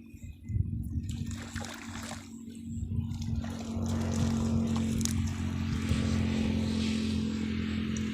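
A small engine running steadily, growing louder over the first few seconds and then holding.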